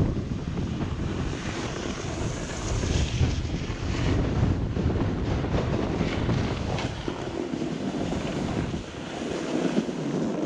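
Wind buffeting a moving camera's microphone during a downhill ski run, with the hiss and scrape of sliding over snow. The low buffeting eases near the end.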